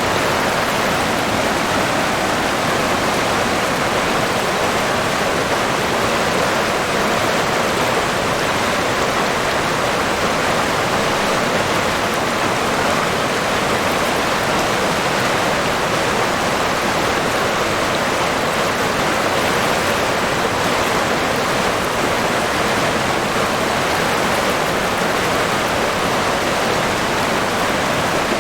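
River water flowing steadily, an even rushing that does not change.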